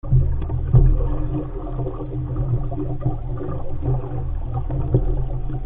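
Water rushing and splashing along the hull of an RS500 sailing dinghy under way, with a steady low rumble of wind on the microphone and a few light knocks.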